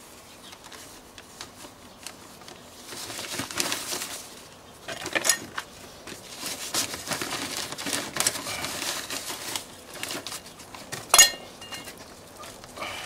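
A black plastic grow bag rustling and crinkling, and dry compost scraping, as hands firm a courgette plant into the bag. The noise comes in bursts, with a few sharp clicks and one loud knock about eleven seconds in.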